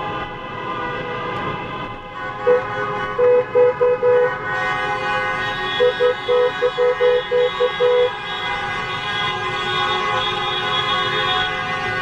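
Many car horns honking at once, a continuous layered blare. Close by, a Volkswagen's horn gives one toot, then a quick run of about four short toots and a longer run of about eight.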